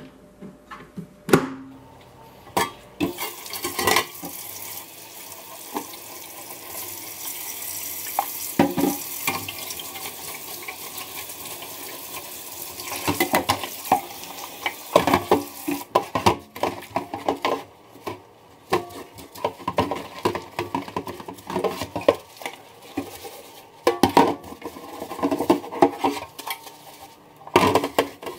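Air fryer drawer and basket being washed with a sponge and dish soap in a stainless steel sink: running water, scrubbing, and the parts knocking against the sink. A steady hiss of water fills the first half, and the second half is full of sharp knocks and splashes.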